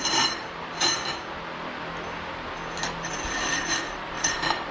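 Steel coil fork springs being slid into extended motorcycle fork tubes, scraping against the tube walls in several strokes, each with a high metallic ring.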